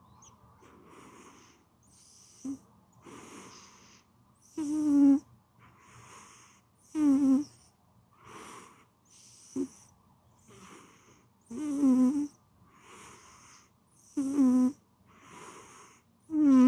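Sleeping cat snoring, with slow regular breaths. Soft airy, wheezy breaths alternate with louder buzzing snores that come about five times, every two to three seconds.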